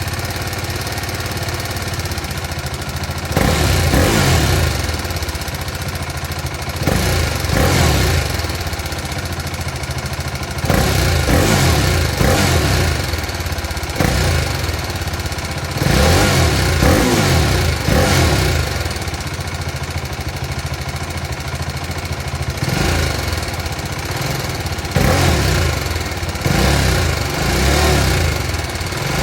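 BMW G310 R's 313 cc liquid-cooled single-cylinder engine through its stock exhaust, idling and revved again and again, each rev rising in pitch and dropping back to idle.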